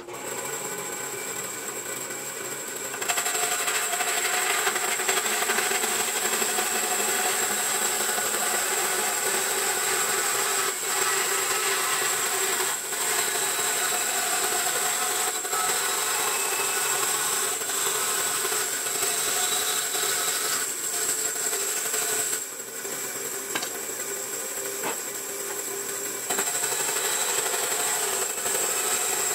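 Band saw running and cutting eucalyptus pallet boards along angled lines, with a steady high whine. The sound gets louder about three seconds in, drops for a few seconds near the end, then picks up again.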